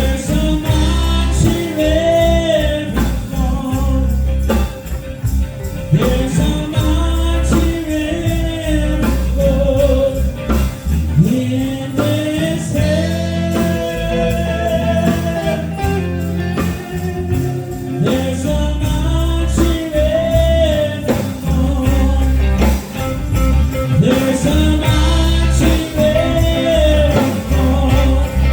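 Live gospel music: a voice singing a wavering melody over a band with a steady bass line.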